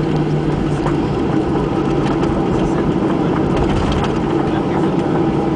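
Cabin noise of a Boeing 737-800 beginning its take-off roll: the CFM56-7B turbofans run loud and steady, over a low rumble from the airframe rolling on the runway. A low hum drops away about half a second in.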